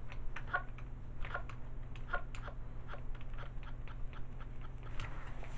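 Faint, irregular clicks and taps from a hand pressing the flipper of a Fisher-Price Sing & Spin Pablo plush toy, over a low steady hum. The toy gives no song or voice: its batteries are too low to run it.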